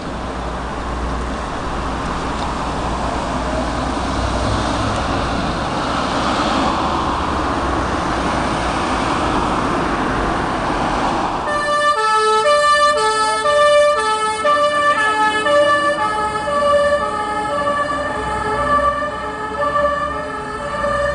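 Fire engine's two-tone siren, starting about halfway through and stepping back and forth between a lower and a higher pitch, the signal of an urgent priority run. Before it there is a steady rushing noise with a low rumble.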